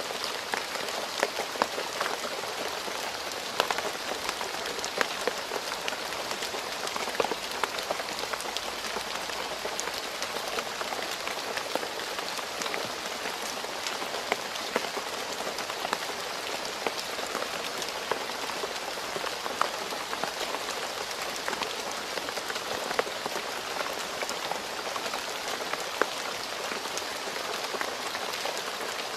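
Steady rain falling on a road surface: a dense, even hiss with many separate drop impacts.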